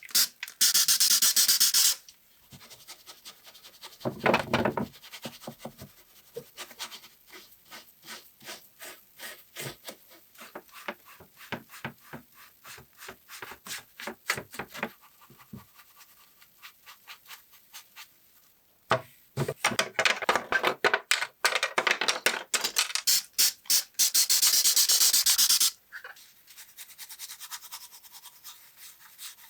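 Hand tool scraping and rubbing on a die-cast metal model car in a rapid run of short scratchy strokes. Two loud stretches of hissing noise come shortly after the start and about two-thirds of the way through.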